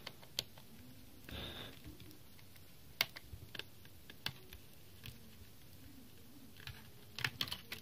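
Small precision screwdriver working the screw of a laptop's memory compartment cover: faint scattered clicks and a brief scrape, with a quick run of several clicks near the end.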